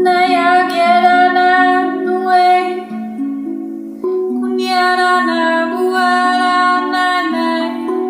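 A woman singing long, wordless light-language notes over the ringing notes of a Rav Vast steel tongue drum in B Kurd. One held phrase fades out about three seconds in, and a second begins about a second later.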